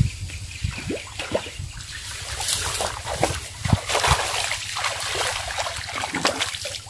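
Hooked snakehead thrashing and splashing at the water surface while being reeled in, in irregular splashes and sloshes.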